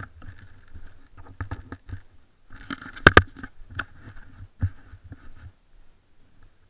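Footsteps on grass and rustling close to a body-worn camera, with two sharp clicks, the loudest sounds, a little after three seconds in; the noises stop about a second before the end.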